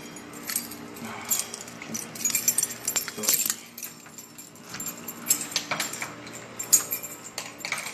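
A bunch of keys jangling and clinking as it is handled, with irregular sharp clinks throughout.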